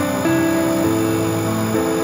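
Background instrumental music, with held notes that change pitch every half second or so over a steady bass line.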